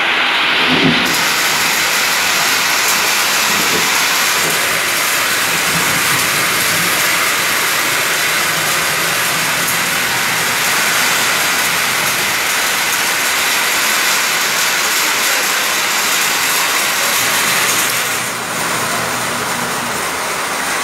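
Heavy rain pouring down in a storm, a loud, steady hiss. It grows brighter about a second in and softens a little near the end.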